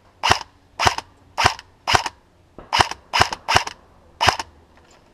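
An airsoft gun firing single shots in quick, uneven succession: about eight sharp cracks over four seconds.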